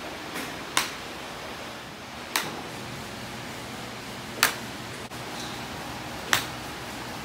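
Sharp clicks of golf clubs striking balls, four strikes about two seconds apart, over steady background noise.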